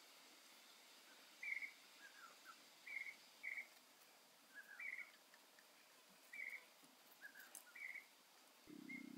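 Faint outdoor ambience with a bird calling a short, repeated note about every one and a half seconds, and softer, lower falling notes in between. A low hum starts just before the end.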